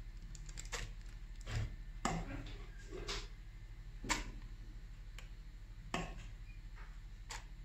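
Metal spoon clinking and scraping against a stainless-steel bowl and tapping on a plastic piping bag as thick strawberry cream is spooned into the bag: about seven separate light clicks at uneven intervals.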